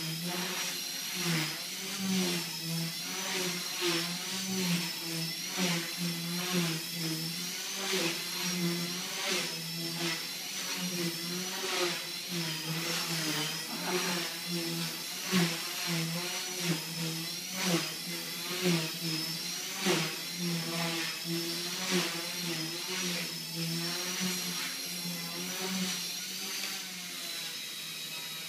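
Axe 100 SS brushless micro RC helicopter in flight: its motors whine and its rotor blades buzz. The pitch wavers up and down as the throttle shifts, with short louder swells about every second.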